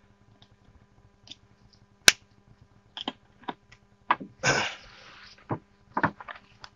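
Handling noises: sharp clicks and light knocks as a plastic oil jug is set down and a dipstick is handled, the loudest click about two seconds in, with a short rustle of cloth a little past the middle.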